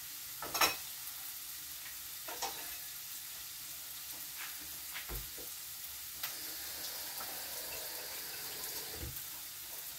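Steady sizzle of chopped onion frying in a pan, with a few sharp taps of a knife on a cutting board as slightly frozen pork sausages are sliced into small pieces.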